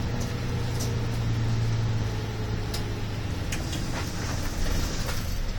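City route bus's diesel engine and drivetrain running on the move, heard from inside the cabin as a steady low hum with road noise and a few light rattles; the hum eases off about halfway through.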